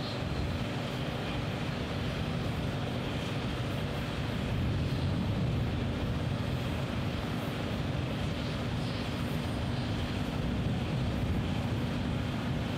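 Heavy construction machinery running: a steady low engine drone with a constant hum.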